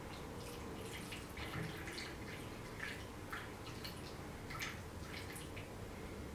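Faint irregular drips and trickles of solvent decanted from a tilted glass conical flask: the solvent layer being poured off the top of used engine oil.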